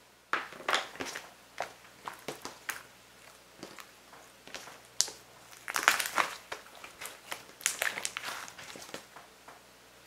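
Green slime squeezed and kneaded by hand, giving irregular sticky crackles and pops as trapped air is pressed out. The sounds start just after the beginning, come thickest about six and eight seconds in, and die away near the end.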